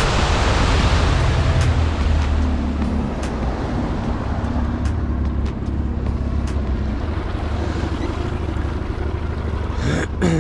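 Boat motor running steadily under way, with wind buffeting the microphone and water rushing along the hull.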